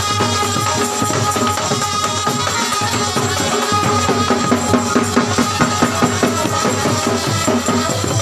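Dhak, the Bengali barrel drum of Durga Puja, beaten with sticks in a fast, dense rhythm, with sharper accented strokes in the second half. Steady held tones sound behind the drumming.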